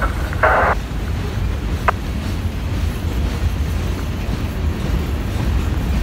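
Freight train cars, autoracks and covered hoppers, rolling past with a steady low rumble of wheels on rail. There is a short, brighter noise about half a second in and a single sharp click near two seconds.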